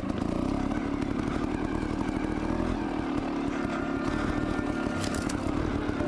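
Beta trials motorcycle engine running steadily as the bike is ridden along a rough trail.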